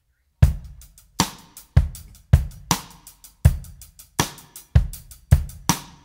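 Background music: a drum-kit beat of kick and snare with hi-hat, starting suddenly about half a second in after silence.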